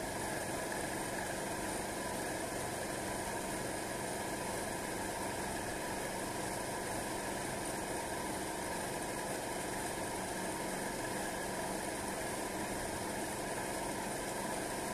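Air compressor for paint spraying running steadily, an even mechanical hum with no change in pitch or level.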